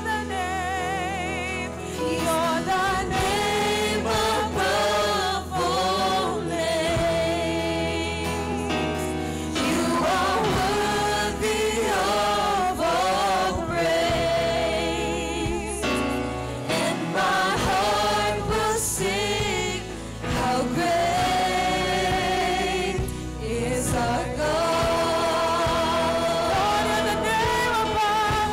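Worship singers performing a slow praise song over instrumental accompaniment. Several voices sing long held notes with vibrato over a sustained low bass.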